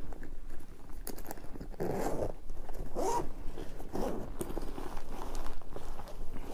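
Zipper on a DJI drone shoulder bag being pulled open in several short strokes, with bag handling between them.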